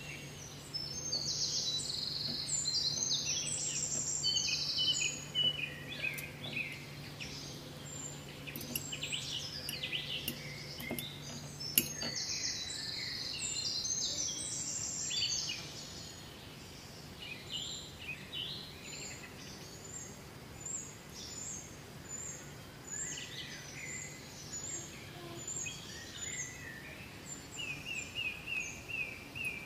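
Several birds chirping and singing in many short repeated notes, with a quick run of repeated notes near the end. A faint steady hum stops about twelve seconds in, just after a single sharp click.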